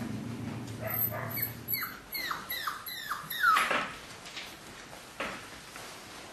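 Braque du Bourbonnais puppies whimpering: a quick run of about six short, high whines, each falling in pitch, the last the loudest. A low steady hum runs under them and stops about two seconds in.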